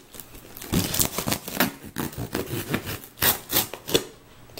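A small knife blade scraping and slicing through plastic wrap and cardboard on a shipping box, in an irregular run of scratchy strokes.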